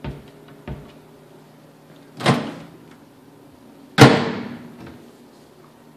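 Kitchen cabinet and appliance doors being worked: a couple of light clicks, a knock about two seconds in, then a louder, sharper bang about four seconds in as a door with a stainless bar handle is handled.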